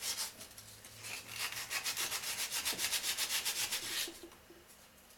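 Rapid, rhythmic hand rubbing on the metal needle-bar area of a PMZ-1A sewing machine, like emery paper worked back and forth at about eight strokes a second. It starts about a second in and stops a little before the end.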